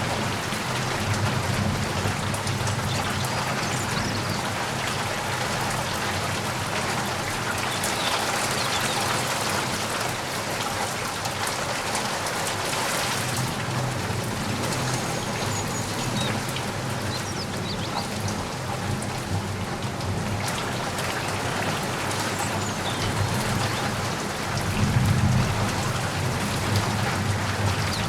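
Steady rain falling and pattering on surfaces, with a low rumble that swells and fades several times and is loudest near the end.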